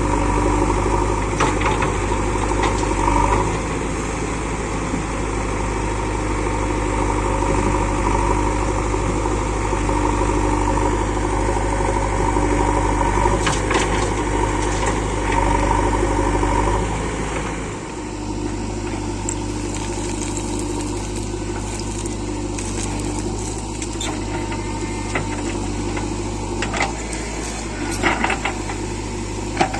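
Diesel engines of a backhoe loader and a tractor running steadily. The engine sound dips and changes about two-thirds of the way through, and a few short knocks come through near the end.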